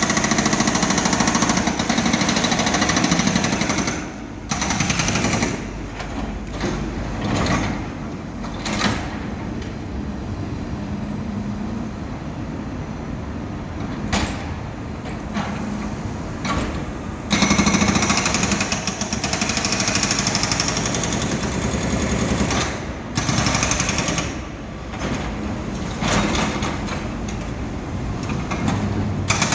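Heavy construction machinery working on rock and concrete, with a rapid hammering rattle, in several stretches that change abruptly in loudness, loudest at the start and again from about 17 seconds in.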